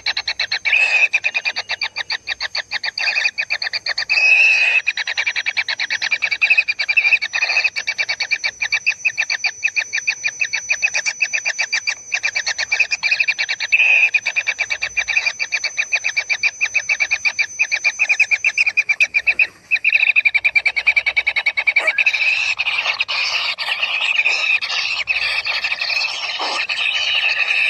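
Kingfisher nestlings in the nest keeping up a continuous, rapid, buzzing begging call. It breaks off briefly about 20 seconds in, then turns harsher and louder over the last few seconds.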